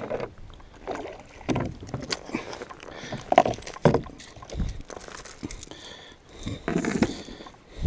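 Irregular knocks, handling and water sounds on a plastic kayak, with a burst of splashing and dripping near the end as a weed-draped metal anchor chain is lifted out of the water.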